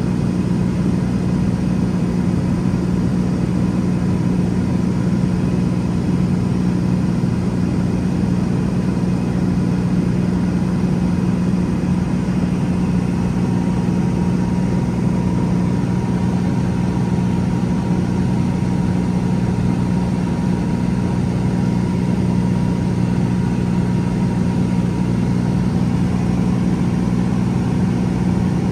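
Piper Comanche 260B's six-cylinder Lycoming piston engine and propeller running steadily in level flight, heard from inside the cabin as a constant low drone.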